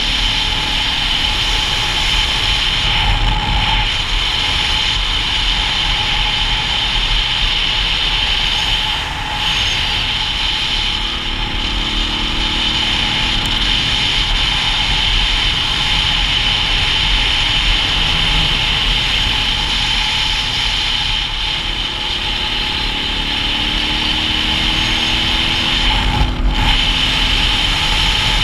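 Dual-sport motorcycle riding at a steady cruise, the engine running under a constant rush of wind and road noise on a GoPro microphone. The engine note rises a little a couple of times.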